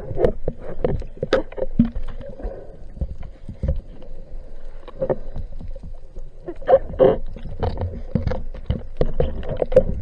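Underwater sound through a camera housing: irregular clicks and knocks over a low rumble of moving water, busiest about seven seconds in.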